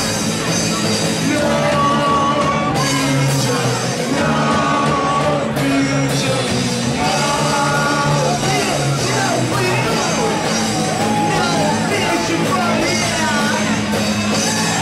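A rock band playing live: electric guitars, bass and drums, loud and steady, with a male singer half-singing, half-shouting the vocals over them.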